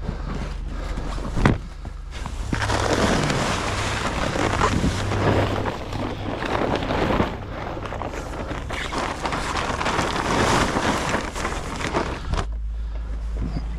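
Snow-laden tent fabric being dragged and bunched up through deep snow: continuous rustling and scraping of the fabric with snow crunching and sliding off it. It starts about two and a half seconds in, after a single sharp knock, and stops shortly before the end.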